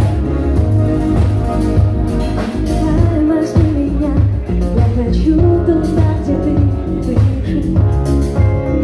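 Live cover band playing a pop song: a woman singing over electric guitar, keyboard, bass guitar and drums, amplified through PA speakers, with a steady beat.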